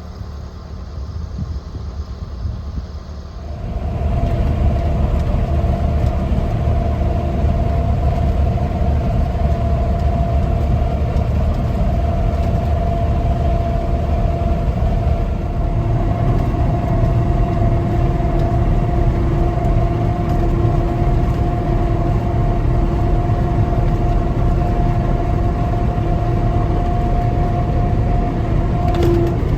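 A heavy engine running steadily with a low rumble and a held whine over it. It gets louder about three and a half seconds in.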